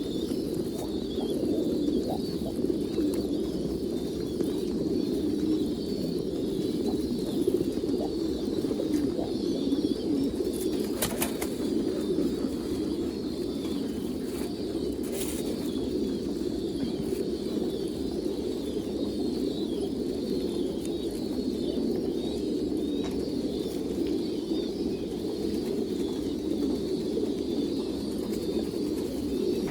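A flock of pigeons cooing together in a steady, overlapping chorus, with a few brief clicks near the middle.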